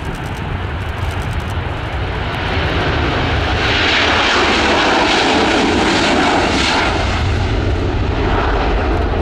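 Twin turbofan engines of a Boeing KC-46A Pegasus tanker at takeoff power during the takeoff roll. The sound grows louder over the first few seconds as the jet approaches, then stays loud with a deep rumble and a rushing hiss that is strongest around the middle, as the jet passes and lifts off.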